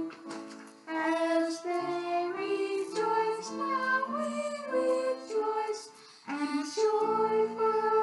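A woman singing a slow children's Easter hymn, the line 'As they rejoiced, now we rejoice, and joyfully we sing', in held notes, with a short break between phrases about six seconds in.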